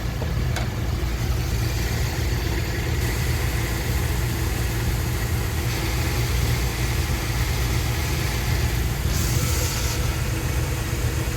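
1973 Dodge D100 pickup's engine idling steadily, with a short hiss about nine seconds in.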